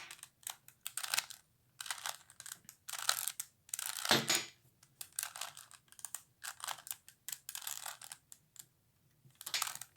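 A 3x3x3 Rubik's Cube having its faces turned in quick succession as a solving algorithm is carried out: a run of short plastic clicking and scraping turns, two or three a second, with a short pause near the end.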